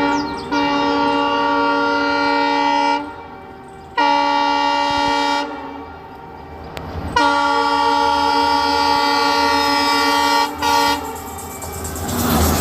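Train horn sounding four blasts, long, shorter, long, then a brief toot, each a steady chord of many tones. Near the end the rumble of the moving train rises in their place.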